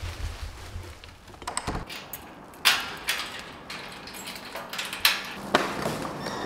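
Front door and metal security grille being unlatched, opened and shut: a run of latch clicks and sharp metallic knocks and clanks, the loudest about two and a half and five seconds in.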